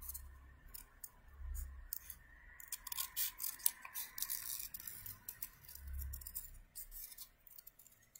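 Small scissors snipping through folded paper in many short, irregular cuts, with a few soft low bumps from handling.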